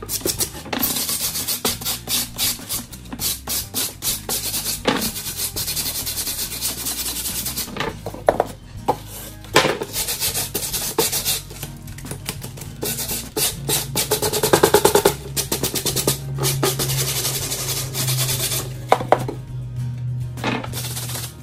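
Stiff stripping brush scrubbing quickly back and forth over carved foam board, a fast dense scratching that knocks off loose crumbs and scores texture into the surface. The scrubbing stops near the end. Background music with a low held note runs under it in the second half.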